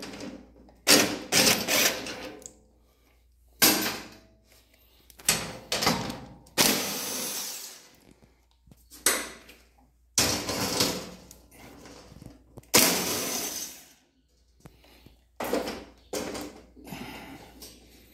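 Cordless drill-driver running in short bursts of a second or two, with short pauses between, as it backs out the bolts that hold the grill on.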